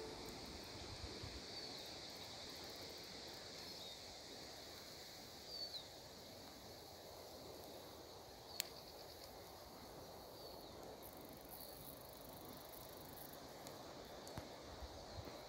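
Faint outdoor ambience with a few short, high bird chirps scattered through it, and a single sharp click about halfway through.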